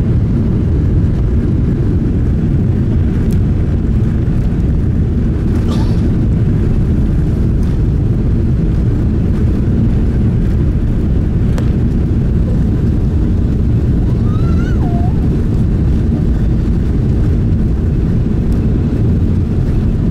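Airbus A380's four Rolls-Royce Trent 900 turbofans at takeoff thrust, heard from inside the rear economy cabin as a steady low rumble during the takeoff.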